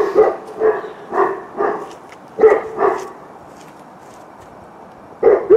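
A St. Bernard barking deeply: a quick run of about seven barks over the first three seconds, a pause, then two more barks near the end.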